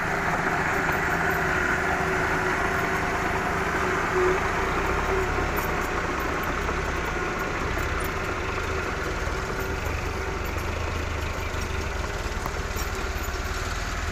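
Hino Dutro dump truck's diesel engine running steadily at low revs as the fully loaded truck creeps slowly along.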